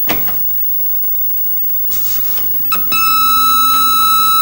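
A key click on a BTX terminal keyboard, a few scattered clicks, then about three seconds in a steady, high-pitched beep-like tone sets in and holds. It is the modem's carrier tone as the phone line to the Bildschirmtext exchange connects.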